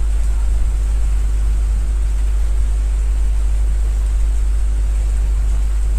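Steady hiss of falling rain, with a strong, steady low rumble underneath.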